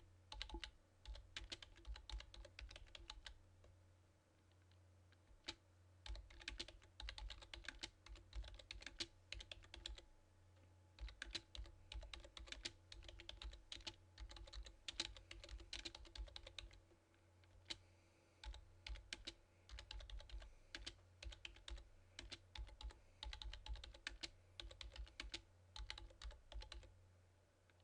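Computer keyboard typing: quick runs of keystrokes in bursts of a few seconds with short pauses between them, faint and close to a low hum.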